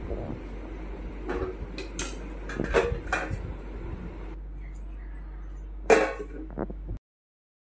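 Stainless-steel kitchenware clinking: several light metal knocks, then a louder clank of a steel lid against the bowl about six seconds in. The sound cuts off suddenly near the end.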